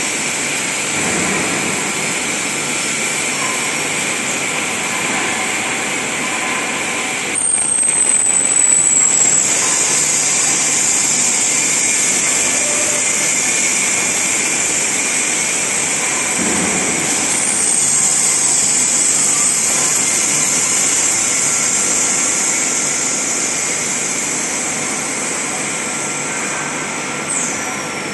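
LPG cylinder airtightness testing line running: a loud, steady high hiss with a machine hum beneath it. A short falling high whistle sounds three times, about ten seconds apart, and the hiss grows louder after the first.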